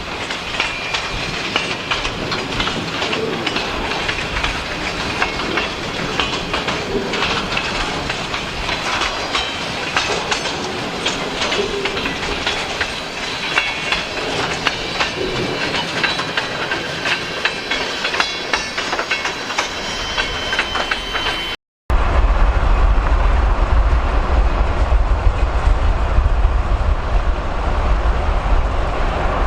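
Freight train cars rolling past, wheels clicking rapidly and steadily over the rail joints. After an abrupt cut about two-thirds of the way through, a steady low rumble takes over.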